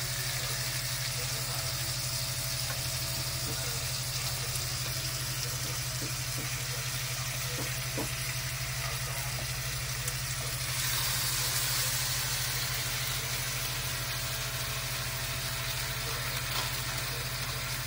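Steady sizzling hiss of food cooking on an electric grill, over a low, constant hum; the hiss gets briefly louder a little past the middle.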